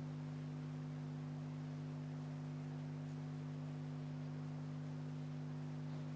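A steady low hum, one unchanging tone with fainter overtones and nothing else over it.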